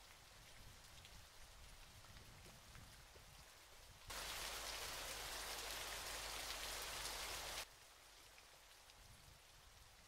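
Steady hiss of falling, rushing water from a waterfall. About four seconds in it turns much louder for some three and a half seconds, starting and stopping abruptly, then drops back to the quieter hiss.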